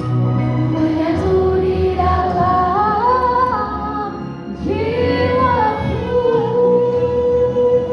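A female voice singing over a backing track. The melody climbs through a phrase, then settles on one long held note through the second half.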